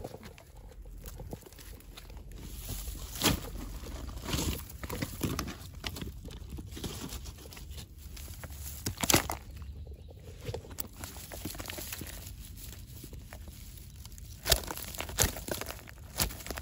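Mesh fish trap being handled on dry grass and leaves: uneven rustling and crackling, with a few sharp knocks, the loudest a little past the middle and again near the end.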